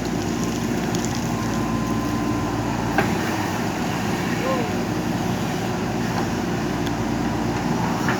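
JCB 3DX backhoe loader's diesel engine running steadily under working load, with a single sharp knock about three seconds in.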